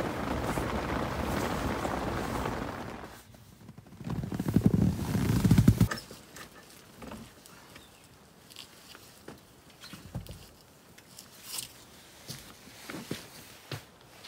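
Steady rain on the fabric of a rooftop tent, fading after about three seconds. Then about two seconds of loud low rumbling that cuts off suddenly. After that come sparse light knocks and rustles from packing up the rooftop tent.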